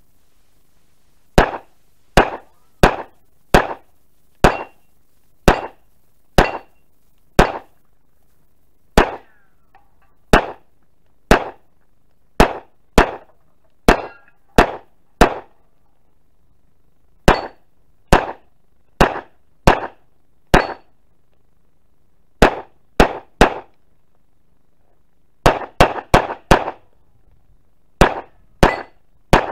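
Glock 17 9mm pistol fed from a 50-round drum magazine firing about thirty shots at an uneven pace, mostly single shots half a second to a second apart, with a quick string of five in about a second near the end.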